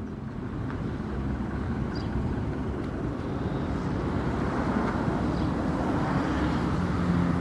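Steady low rumble of a motor vehicle running, slowly growing louder.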